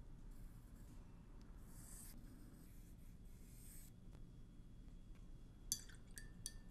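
Faint scratching of a pencil drawing letters on paper, in a few separate strokes, with a few short ticks near the end.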